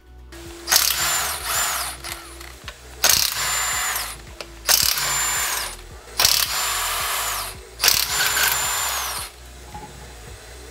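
Cordless impact wrench taking the lug bolts off a car wheel: five bursts of about a second each, one per bolt. Each burst ends with the motor's falling whine as it spins down.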